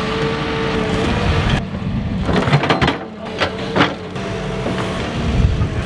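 Cat tracked excavator's diesel engine running steadily under load as its bucket digs and dumps wet soil, with a held whine in the first second and a half and a few sharp knocks about halfway through.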